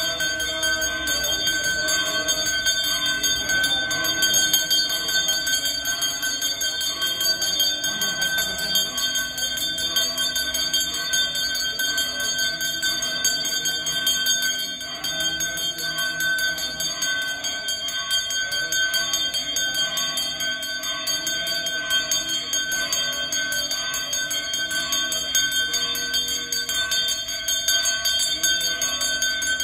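Brass hand bell (puja ghanta) rung without pause, a steady bright ringing, as during the worship offerings of a Hindu temple puja.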